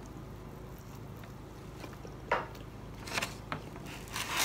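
A person chewing a mouthful of fried food, with a few short sharp mouth noises about two seconds in and again near the end, over a low steady room hum.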